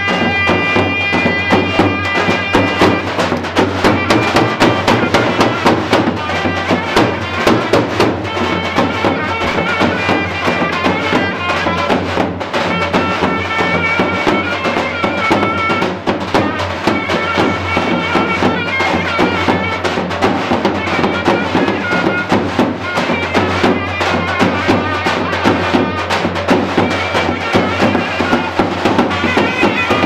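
Turkish folk dance music: a nasal, reedy wind melody over fast, steady drumming.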